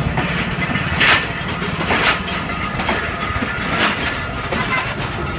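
Passenger train rolling through the station, its wheels knocking over rail joints in sharp clanks about a second or two apart over a low rumble.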